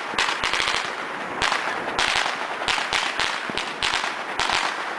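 A lit string of Chinese firecrackers going off in a rapid, continuous crackle of small bangs.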